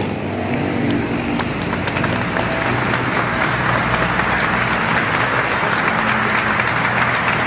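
A street scene with a vehicle engine humming steadily underneath and a dense crackling hiss that sounds like applause, starting about a second and a half in.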